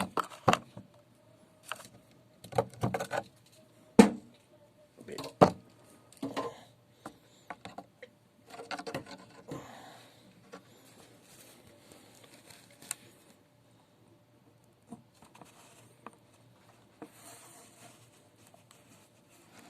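Irregular clicks, taps and knocks of a wire, tools and small parts being handled while the wire is tinned with a soldering iron, with the loudest knocks about four and five and a half seconds in, then only faint scattered ticks.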